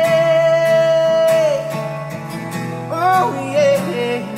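A male voice holds one long sung note over strummed acoustic guitar. The note ends about a second and a half in, the guitar plays on, and near the end the voice comes back with a short wordless run that slides between pitches.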